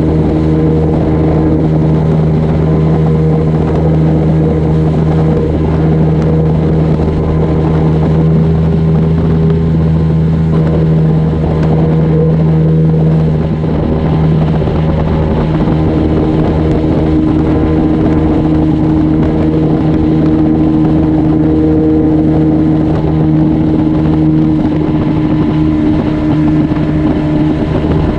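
A poling skiff's outboard motor running steadily at cruising speed: a constant engine drone at an even pitch, its note shifting slightly about halfway through.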